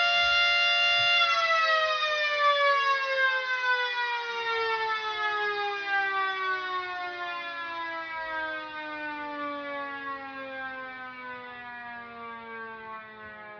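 Mini 2T22A two-tone electromechanical siren sounding its two-note chord, then winding down in one long falling glide as it coasts to a stop and fades.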